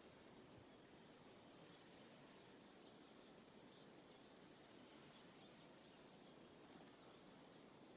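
Near silence, with several faint, short, high-pitched insect buzzes between about two and seven seconds in.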